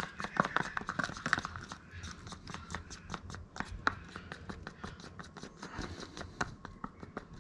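A plastic stir stick scraping and clicking around the inside of a small plastic mixing cup, stirring resin with a pinch of foam dust. It is a quick, uneven run of small clicks and scrapes, densest in the first couple of seconds and thinning out after.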